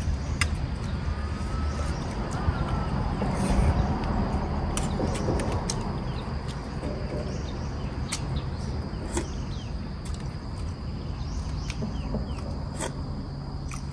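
Forest ambience: a steady high insect drone with a few short bird chirps in the first few seconds, over low rumbling noise and scattered sharp clicks.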